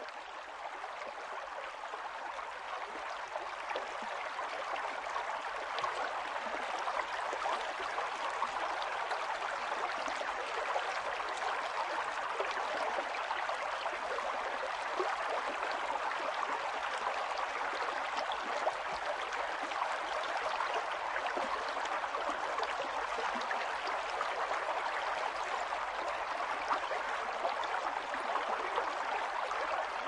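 A river running: a steady, even wash of flowing water that swells in over the first few seconds.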